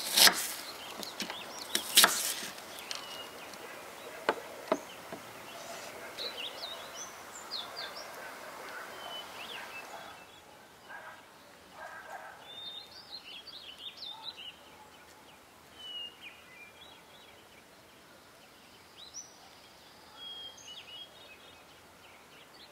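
A dagger blade slicing through an apple and knocking sharply onto a cutting board a few times in the first seconds. After that, birds chirp in short scattered calls.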